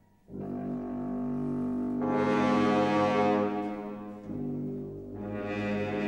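Orchestral film score: brass holding sustained chords that come in about a third of a second in, swell, ease off briefly and swell again.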